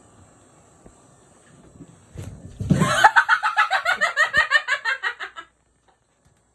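A rapid cackling voice, about eight pitched pulses a second, that starts about two and a half seconds in, falls in pitch and fades out over nearly three seconds.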